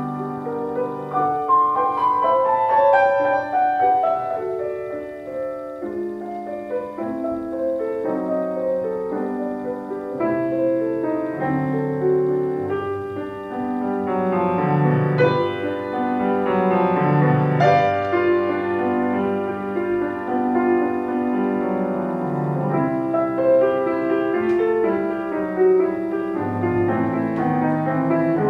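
Grand piano played solo: a classical piece with continuous, overlapping notes and melodic lines that rise and fall, heard in a hall.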